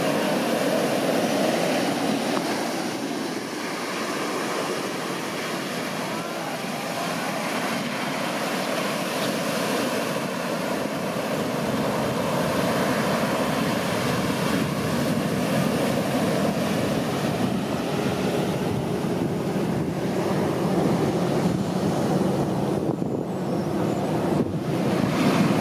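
Ocean surf: waves breaking in the shorebreak and foamy water washing up the sand, a steady rushing roar that swells louder near the end. Some wind is on the microphone.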